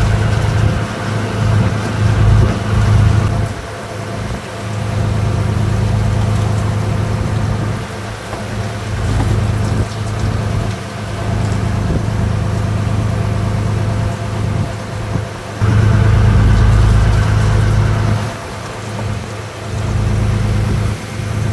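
A fishing boat's engine running steadily, with a low rumble that swells twice: near the start and about two-thirds of the way through.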